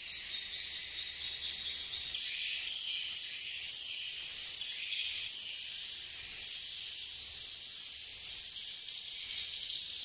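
Swiftlets twittering: a dense, high-pitched chirping with no let-up. Past the middle, a short rising chirp repeats a bit more than once a second.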